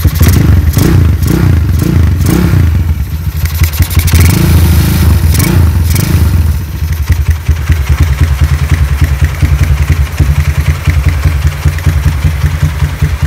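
Custom Honda CB motorcycle engine being revved in a series of quick throttle blips, then a couple more, before settling to a steady idle a little past halfway through.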